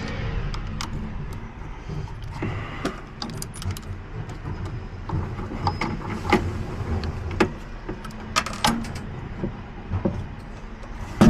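Scattered light clicks and rattles of keys and small parts being handled, over a steady low hum like an idling engine.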